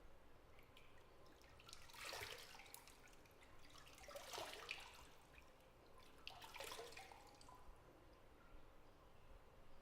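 Bath water in a tub: three brief spells of soft splashing and dripping, about two seconds apart, over a faint steady background hiss.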